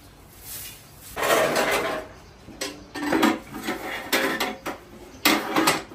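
Short grass broom sweeping a tiled floor in a series of strokes, with small stools scraping and knocking on the tiles as they are pushed aside. The loudest strokes come about a second in and near the end.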